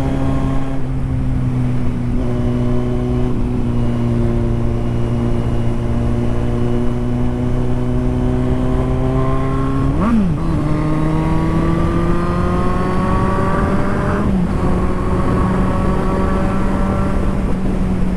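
Motorcycle engine heard from the bike while riding, running at an easy, steady throttle with its pitch creeping slowly upward. About ten seconds in it gives a quick blip of revs and then settles at a higher engine speed, with a smaller change near fourteen seconds. Wind rushes over the microphone throughout.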